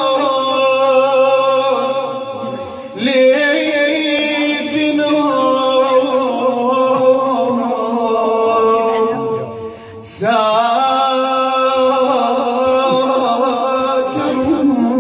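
Male voice chanting a slow devotional melody in nasheed style, with long held, wavering notes. New phrases begin about three seconds in and again about ten seconds in.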